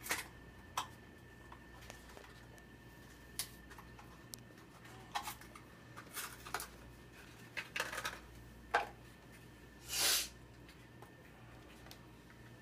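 Hands unpacking a tube of Crest toothpaste from its cardboard box and handling it: scattered small clicks and rustles of cardboard and plastic, with a longer crinkle about ten seconds in.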